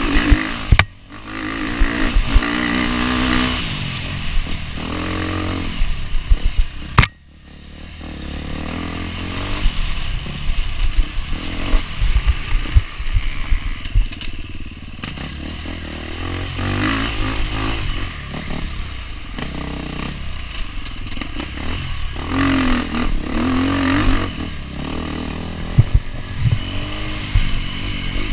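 Enduro motorcycle engine revving hard, its pitch rising and falling with the throttle, with knocks and rattles from the bike over rough ground. The engine sound drops away briefly about a second in and again about seven seconds in.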